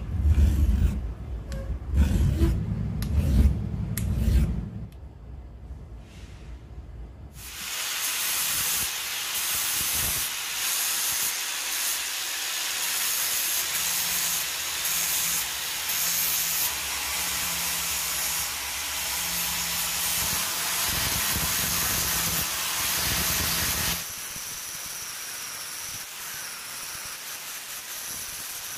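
A hand file rasps in strokes over the welded face of a steel sledgehammer head held in a vise. From about seven seconds in, an angle grinder with an abrasive disc grinds the hammer head in a loud, steady hiss, turning quieter for the last few seconds.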